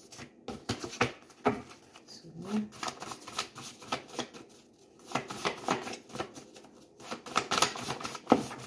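A deck of tarot cards being shuffled by hand: clusters of quick, uneven card flicks and slides.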